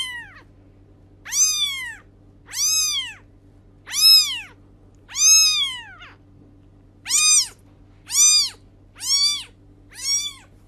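Young kitten meowing over and over: about nine high-pitched meows a little over a second apart, each rising and then falling in pitch.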